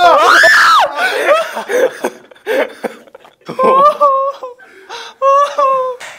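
A young man's shout that rises and falls in pitch, then breathless, wheezing laughter, 'heuheuheu', with two longer held cries near the middle and end.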